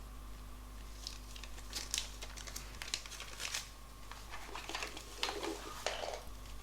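Packaging being handled, rustling and crinkling in a run of short, irregular crackles.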